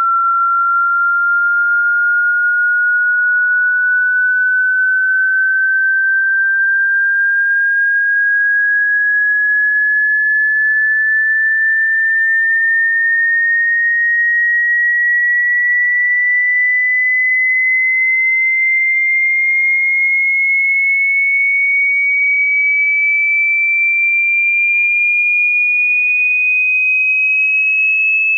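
Hearing-test pure sine tone sweeping slowly and evenly upward in pitch, rising about an octave at a steady loudness.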